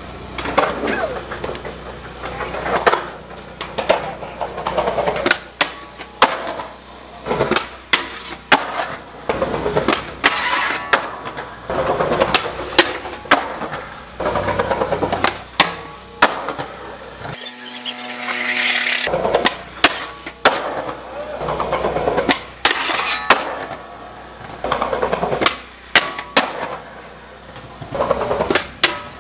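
Skateboard on concrete at a stair set: wheels rolling, with many sharp pops, slaps and knocks as the board hits the ground and steps.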